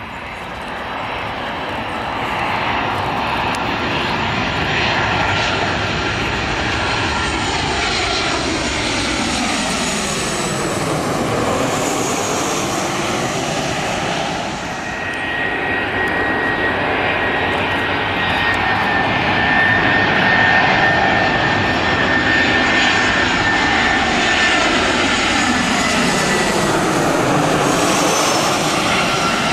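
Two twin-engine jet airliners on final approach passing low overhead one after the other, each a loud jet engine noise whose pitch drops as the aircraft goes by. The second carries a steady high whine over its engine noise.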